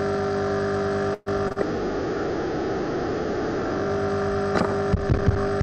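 Loud, steady electronic hum and buzz made of several fixed tones from a glitching online-call audio feed, the noise of a broken connection in place of the lecturer's voice. It cuts out briefly about a second in, and a few sharp clicks come near the end.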